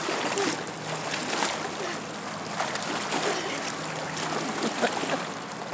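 Lake water lapping and splashing against shoreline rocks, stirred by children wading and swimming in the shallows, with scattered small splashes.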